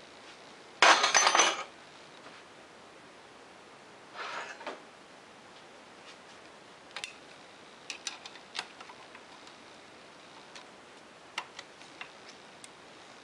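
Metal clinks and rattles from parts and tools being handled at a metal lathe: a loud scraping rattle about a second in, a shorter softer one around four seconds, then scattered light metallic clicks.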